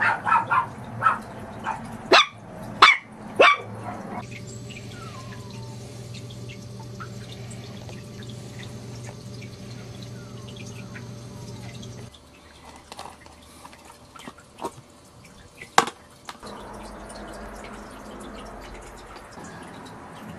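Maltese puppy yapping: a quick run of high-pitched barks in the first few seconds. After that a steady background hum with scattered small clicks and one sharp knock.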